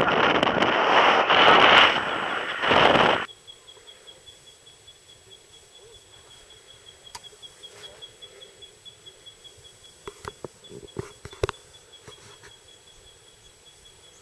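Wind rushing over the camera microphone of a paraglider in flight, cutting off abruptly about three seconds in. After that, a quiet open-air background with a thin, steady, high-pitched trill and a few faint clicks about ten to eleven seconds in.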